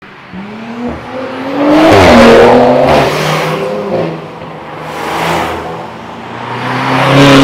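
Performance cars accelerating past one after another, with loud exhaust. The engine note rises with each car, loudest about two seconds in and again near the end.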